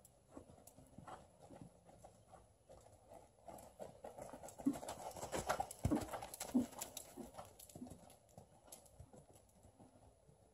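A horse's hooves thudding on a sand arena footing in an irregular run of soft hoofbeats. They grow louder as the horse passes close by about halfway through, then fade as it moves away.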